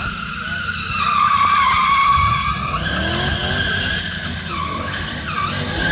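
BMW E39 M5's V8 engine running hard as the car drifts, with its tyres squealing on wet asphalt; the squeal gets louder about a second in and shifts pitch a couple of times.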